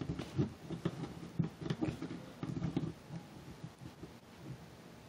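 Plastic action figure being handled and posed on a tabletop: a run of small irregular clicks, taps and rubbing as its joints are moved and a toy rifle is set in its hands.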